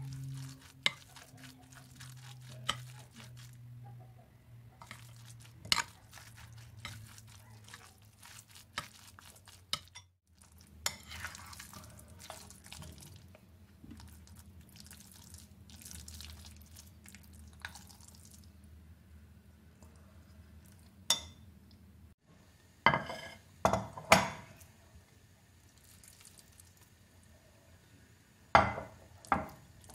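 Metal spoon stirring grated carrot and zucchini with yoghurt in a ceramic bowl: soft scraping and frequent light clinks of spoon on bowl. In the last third come a few louder clatters of ceramic dishes, over a low steady hum.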